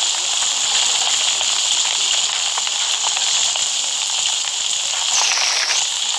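Steady loud hiss with faint scattered crackles, its tone shifting briefly about five seconds in.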